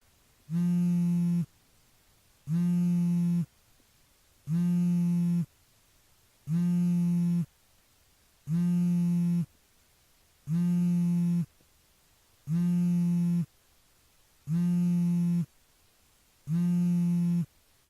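A buzzing electronic tone sounding in identical one-second pulses, one every two seconds, nine times in a row at the same pitch.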